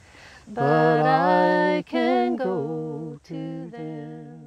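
A single voice singing a gospel song unaccompanied: a breath about half a second in, then long held notes, the last ones falling in pitch and fading out near the end.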